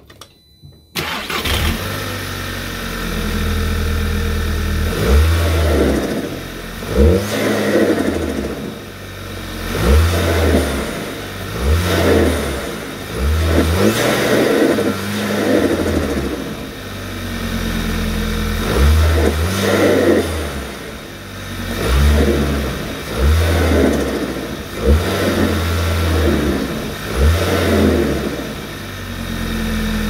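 Volkswagen MK6 Golf GTI's turbocharged 2.0-litre four-cylinder starts about a second in, idles briefly, then is blipped again and again, about a dozen short revs falling back to idle between them. The induction noise comes through a COBB SF aluminium intake with its airbox lid off.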